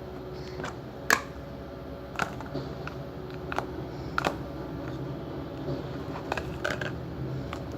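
Purple slime being stretched and squished by hand, giving irregular sharp pops and clicks, the loudest about a second in.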